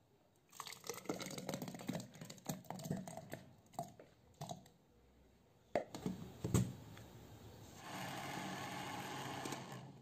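Water and ingredients poured into a glass blender jar, then two sharp knocks as the plastic lid is fitted. Near the end a blender motor runs steadily for about two seconds, mixing the semolina batter.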